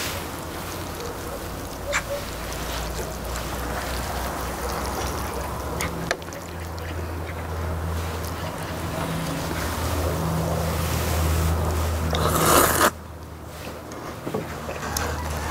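People eating spicy raw-fish noodles with chopsticks: slurping and chewing, with small clicks of chopsticks and bowls, over a steady low rumble. Near the end a louder noisy burst lasts under a second and cuts off sharply.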